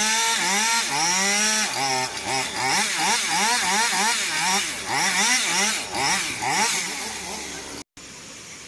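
A small engine revved up and down over and over, its pitch rising and falling about twice a second. It starts abruptly and cuts off just before the end.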